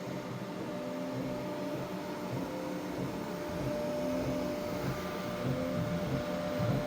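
3D printer running mid-print: its stepper motors whine in short tones that start, stop and change pitch with each move, over a steady fan hum.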